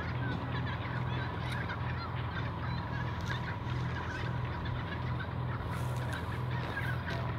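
Diesel engine of a 1920s CPH 'Tin Hare' railmotor idling at a standstill, a steady low pulsing throb with a faint steady whine, and short high chirps scattered over it.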